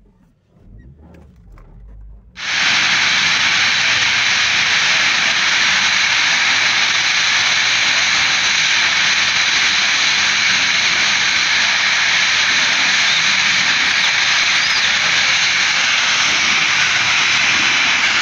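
Loud, steady hissing roar of the burning gas tanker, gas jetting out and burning, starting abruptly about two and a half seconds in and holding even without letting up.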